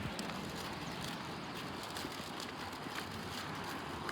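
Steady road and engine noise of a car driving, heard from inside the car, with a low rumble and a few faint clicks.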